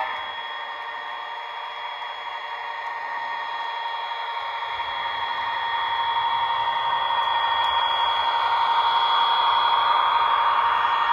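Bachmann HO scale GP35 model locomotive with a TCS WOW sound decoder running past with a freight train: its diesel engine sound and running-gear noise make a steady whine that grows louder as it nears and passes, loudest near the end.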